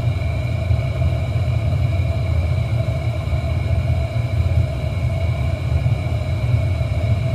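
Steady low roar of a glass workshop's gas-fired furnace and its blowers, with a faint steady whine above it.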